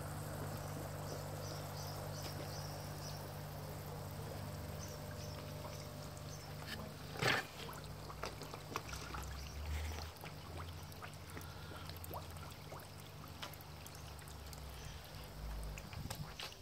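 Water trickling and splashing into a garden pond, over a steady low hum, with one sharp knock about seven seconds in.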